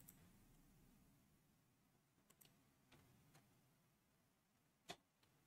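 Near silence with a handful of faint, short clicks of a computer mouse, the last one a little louder near the end.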